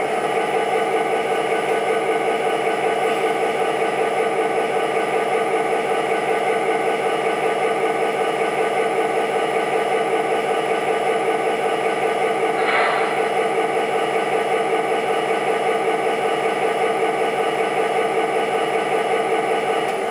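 MTH Proto-Sound 2.0 sound system in an O-gauge Norfolk Southern GP35 model locomotive, playing a diesel engine idling steadily through the model's speaker. There is one brief burst of noise about two-thirds of the way through.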